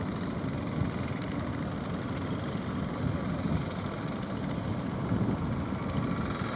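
Fishing boat's engine running steadily as the boat comes in through the surf: a continuous low rumble.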